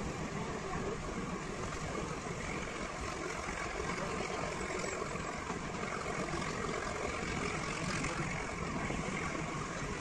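Nilgiri Mountain Railway toy train running, a steady, even noise of the moving train with no separate knocks or beats standing out.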